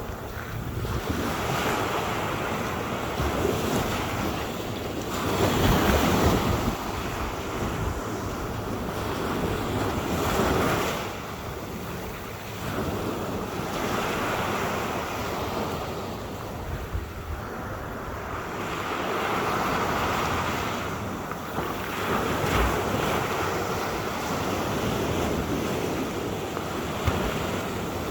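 Water rushing and splashing, swelling louder and fading again every few seconds, with wind buffeting the microphone.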